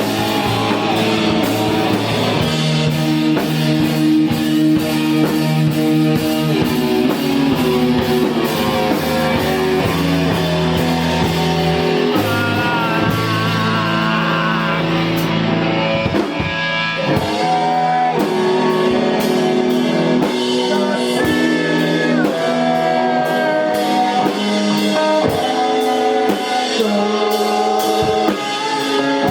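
Live emo rock band playing: electric guitars ringing over a steady drum kit.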